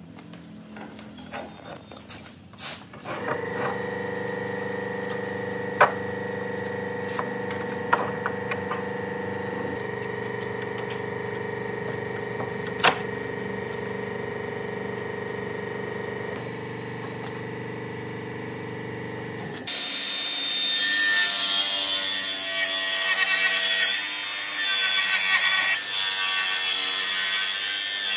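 A power tool motor runs with a steady hum and a few sharp clicks, then about two-thirds of the way in it gives way to a louder sound of a table saw ripping a wooden board lengthwise.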